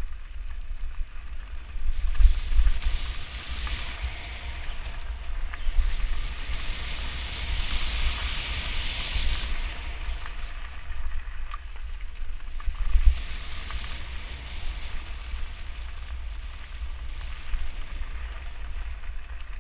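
Wind rumbling on a moving GoPro's microphone, with the hiss of bicycle tyres rolling over a gravel trail swelling and fading several times.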